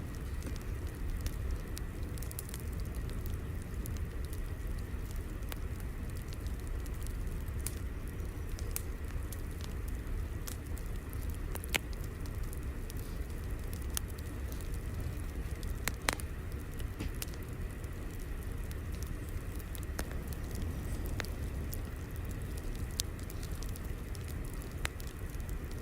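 Fire crackling: a steady low rumble with scattered sharp pops and snaps, two louder snaps around the middle.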